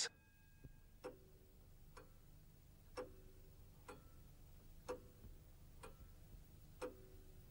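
A clock ticking faintly and evenly, about once a second, each tick with a short ringing tone.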